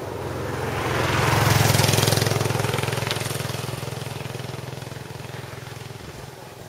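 A motorcycle passing close by, its engine note and rush swelling to the loudest about a second and a half in, then fading steadily as it pulls away ahead.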